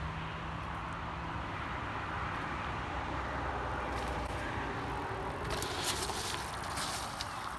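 Mountain bike tyres rolling over a packed-dirt trail with steady wind rumble on the microphone, and gravelly crackles and clicks as the bike passes close about six seconds in.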